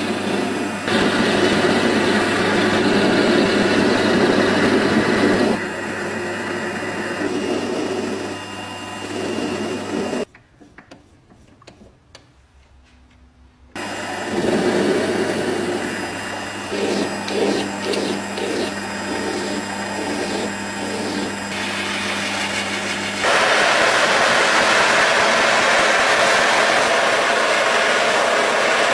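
Metal lathe running, its carbide insert cutting the end of a spinning steel rod, in two passes with a quieter pause between them about ten seconds in. About twenty-three seconds in, a gas torch flame takes over with a loud, steady hiss.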